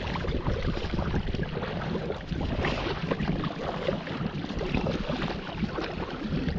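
Double-bladed kayak paddle strokes and water splashing and lapping against a kayak hull on a choppy sea, with wind buffeting the microphone.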